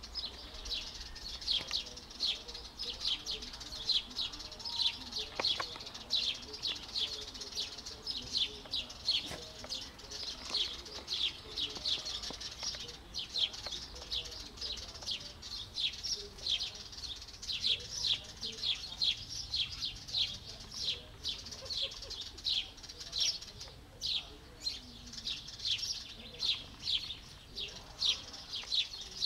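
Small birds chirping steadily: short, high chirps about three a second.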